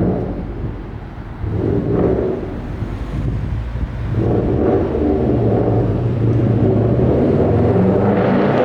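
Exhaust of a turbocharged Subaru flat-four engine. It swells briefly a couple of times, then runs steadily and louder from about four seconds in.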